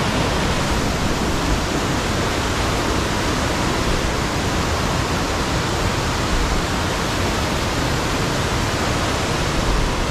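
Whitewater of a mountain creek rushing down a cascade over boulders: a loud, steady rush of water.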